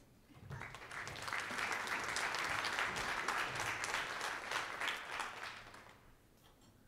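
Audience applauding, starting about half a second in and fading away after about five seconds.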